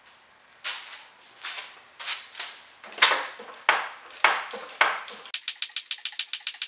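Foot pump of a hydraulic scissor lift cart being pumped, heard as a series of short rasping strokes as the table rises under a push mower. About five seconds in, a rapid, even ratchet-like clicking starts, about seven clicks a second.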